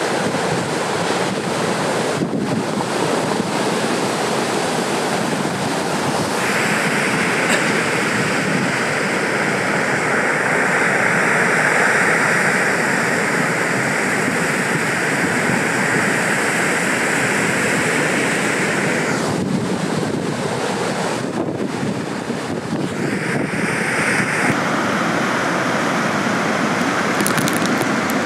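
Wind buffeting the microphone over the steady rush of breaking surf, with a brighter hiss for a long stretch in the middle.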